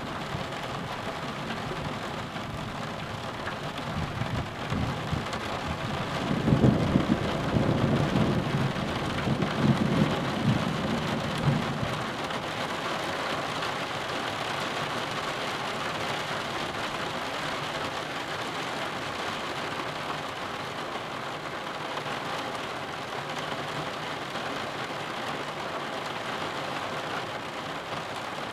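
Steady rain on a roof window, with a long rumble of thunder that builds about four seconds in, swells in several peaks and dies away about twelve seconds in. Heard from indoors through a nearly closed roof window.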